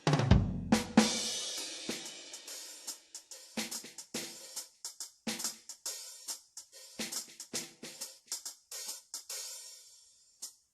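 Alesis Command Mesh electronic drum kit being played. A heavy kick-and-cymbal hit about a third of a second in rings and slowly dies away, followed by scattered lighter cymbal and drum strokes that thin out and stop near the end.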